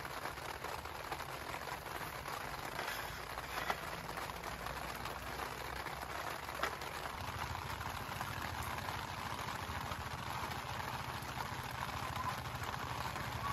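Steady rain falling, an even hiss with a few sharp drop ticks.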